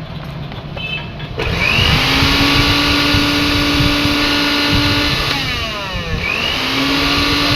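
Electric juicer motor switched on, quickly spinning up to a steady high whine. About four seconds later it winds down with falling pitch, then it is switched on again and spins back up.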